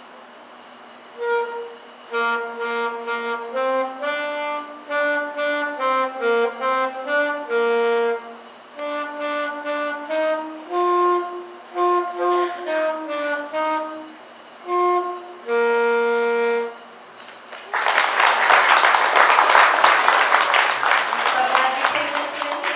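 A beginning band student plays a short tune alone on a wind instrument, one note at a time with small gaps between notes. Near the end the audience breaks into loud applause.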